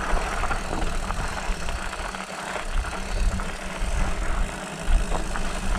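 Riding noise from a hardtail mountain bike heard through a chest-mounted GoPro Hero 7: a steady, uneven low rumble of wind and tyres on the trail, with light scattered rattles from the bike.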